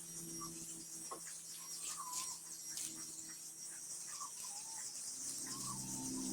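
Faint background: a steady high insect-like hiss with a few short chirps about two, four and six seconds in, over a low hum.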